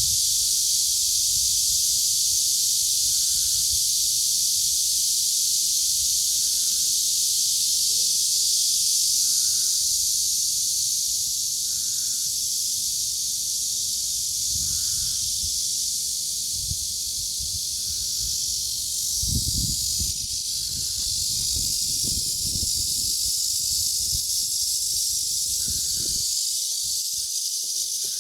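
A chorus of cicadas buzzing in a loud, steady, high-pitched drone on a midsummer day. Low rumbling swells and fades in the second half.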